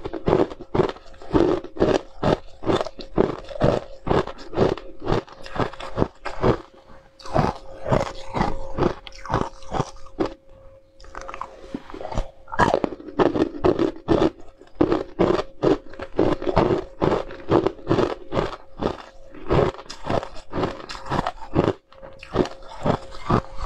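Ice cubes being bitten and crunched between the teeth, close to the microphone, in quick sharp cracks several times a second. There is a brief pause about ten seconds in.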